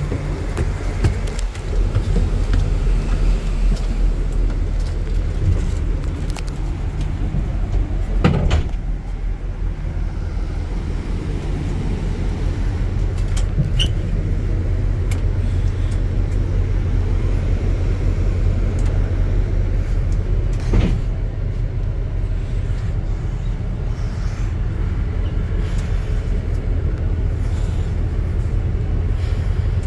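Steady low rumble of a shuttle coach bus's engine running, heard from inside the bus. Two sharp knocks stand out, one about a third of the way in and one about two-thirds in.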